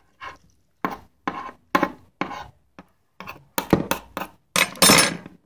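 Wet squelches of glue-and-borax slime being squeezed and kneaded in bare hands: a run of short, sudden squishes about every half second, with a longer, louder wet squish near the end.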